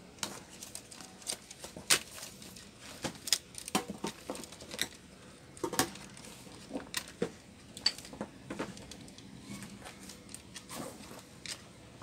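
Light, irregular clicks and taps from hands working on a Lenovo Y460 laptop's open chassis, pressing the white wireless antenna cable into its routing in the base; about a dozen sharp ticks, unevenly spaced.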